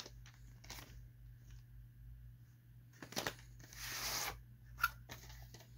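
Faint clicks and handling noises of a plastic VHS cassette being turned over and handled. A short scraping rustle comes about four seconds in, and there is a sharp click just before five seconds.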